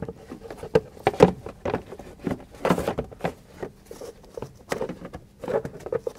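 Empty plastic air cleaner housing knocking and scraping against the surrounding parts as it is worked into place in the engine bay: irregular light knocks and clicks, the loudest about a second in.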